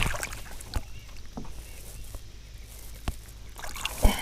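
Scattered knocks and clicks, with light patter and splashing, from gear and a hooked bass being reeled in beside a fishing kayak; the loudest knock comes right at the start and another near the end.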